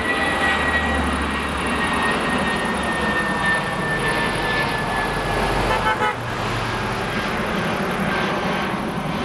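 Airbus A319 airliner's twin jet engines at takeoff power as it climbs away overhead: a steady rush of jet noise with a high whine that slowly falls in pitch.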